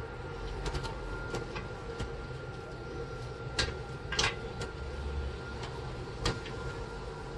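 Scattered light clicks and taps of PC case parts and cables being handled and tidied, with a short scraping rustle about four seconds in and a sharp click near two-thirds of the way through, over a steady room hum.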